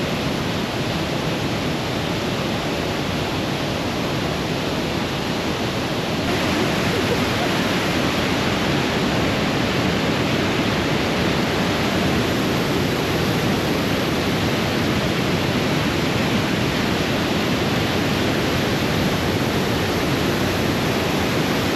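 Steady rushing of a mountain torrent, growing a little louder about six seconds in.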